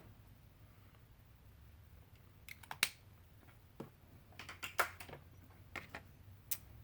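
A scattering of small, sharp clicks and taps in quick clusters, the sound of hands handling plastic makeup containers and caps.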